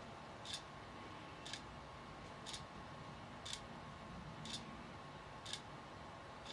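Quartz clock-kit movement ticking once a second as its second hand steps round, light sharp ticks over a faint steady background hum.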